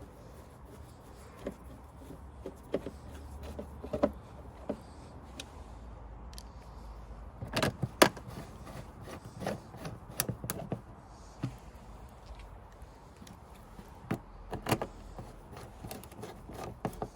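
Scattered clicks and knocks of hand work as the cover's screws are fitted and tightened, with the loudest knocks about eight seconds in.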